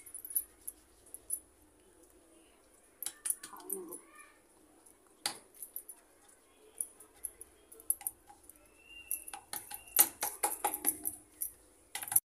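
Scattered light clicks and clinks of hands handling parathas and folding dough on a wooden rolling board, coming thicker near the end; a faint voice is heard briefly about three seconds in.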